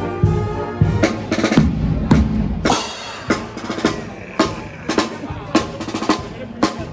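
Marching band playing a march: brass over drums at first, then a few seconds in the brass stops and the percussion section of bass drum, snare drums and cymbals carries on alone. It keeps a steady beat of about two strokes a second with snare rolls in between.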